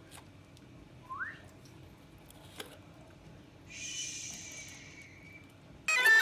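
Mostly quiet room with a few faint sounds: a short rising whistle-like chirp about a second in, a single click, and a soft hiss with high whistling tones lasting about two seconds past the middle. Background music comes in loudly just before the end.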